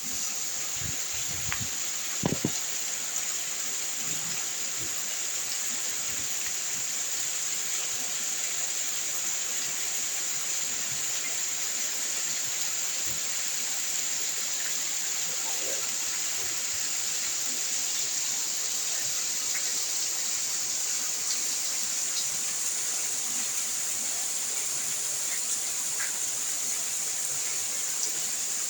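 Steady rain falling: an even hiss with scattered faint drop ticks, and a couple of louder knocks about two seconds in.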